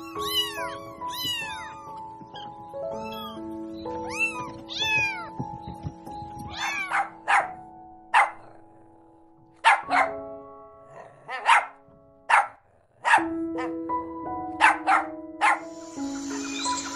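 Kittens mewing repeatedly for the first few seconds, then a puppy giving a string of short, sharp high yaps, all over background music with long held notes.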